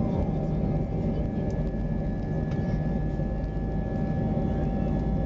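Airbus A320-214's CFM56 turbofan engines running at a steady setting: a low rumble with a steady whine over it.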